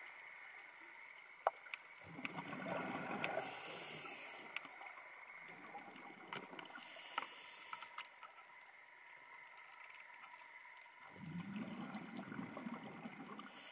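Underwater sound through a camera housing: three swelling bursts of bubbling, about two, five and eleven seconds in, from a scuba diver's exhaled regulator bubbles, with scattered sharp clicks in between.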